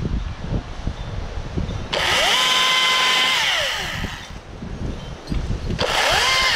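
Husqvarna T536LIXP battery chainsaw triggered twice. Each time its electric motor and chain whine up to a steady high pitch, hold it about a second, then wind down. Low rustling and rumble come before the first run.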